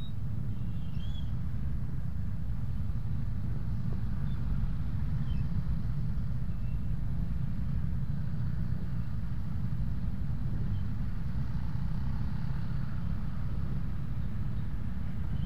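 Steady low rumble of riding a Honda Scoopy 110 scooter in slow traffic: its single-cylinder engine running, mixed with wind noise on the helmet-mounted camera.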